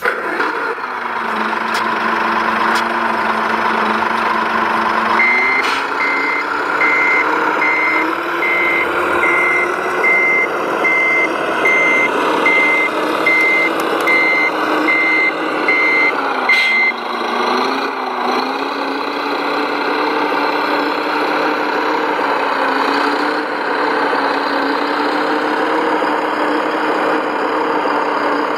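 Simulated diesel engine sound from the onboard sound module of a radio-controlled Liebherr LRT 1100-2.1 crane model: idling steadily, then revving up about five seconds in while reversing beeps sound about one and a half times a second for some twelve seconds. After the beeps stop the engine eases off briefly, then runs on steadily.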